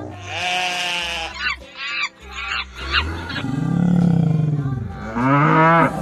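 A quick succession of animal-call sound effects, farm and wild animals one after another, among them a long low moo about halfway through, over a music track with a low repeating beat.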